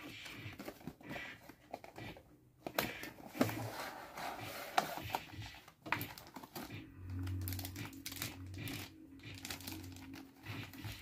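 Cardboard box flaps and plastic packaging being handled: crinkling and rustling of plastic wrap, with scattered clicks and knocks of the plastic tray. A low steady hum comes in for about two seconds past the middle.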